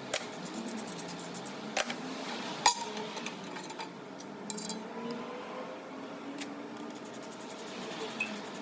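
Hand tools and metal parts clinking and knocking: a few separate sharp strikes spread through, with a short quick run of ticks near the middle, over a steady background noise.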